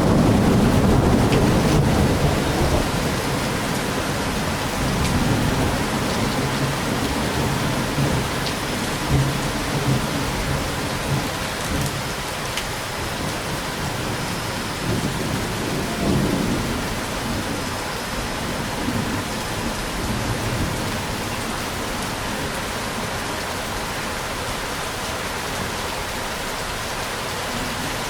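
Steady rain with thunder rolling through it: a loud low rumble at the start that slowly dies away, with fainter rumbles returning a few times before the middle.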